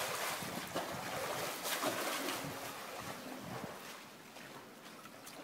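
Pool water splashing and sloshing as a swimmer somersaults repeatedly along the pool. The splashes are loudest near the start and about two seconds in, then ease off.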